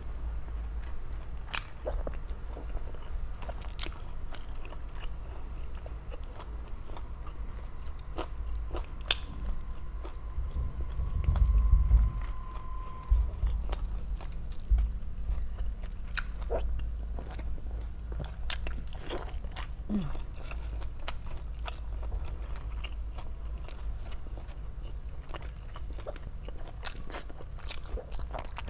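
Close-up chewing and crunching of crispy deep-fried pork belly (lechon kawali), with irregular crisp crunches throughout. A louder low thump comes about eleven seconds in.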